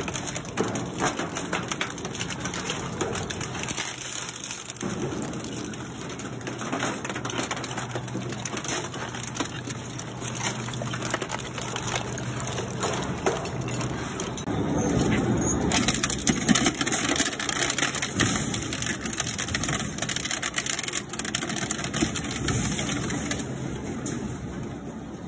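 Twin-shaft industrial shredder running, its interlocking toothed rotors crunching and cracking plastic scrap fed into them, with a steady low motor hum underneath. The crunching grows louder about halfway through.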